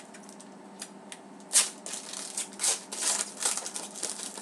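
Trading cards and a foil card pack wrapper being handled: a run of short, sharp crinkles and rustles, with one sharp crackle about a second and a half in and a busy stretch near the end as the next pack is opened.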